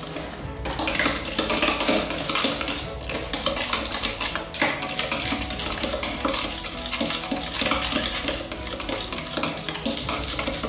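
Metal spoon stirring a thick wood-glue slime mixture in a glass bowl, with rapid, irregular clinks and scrapes against the glass.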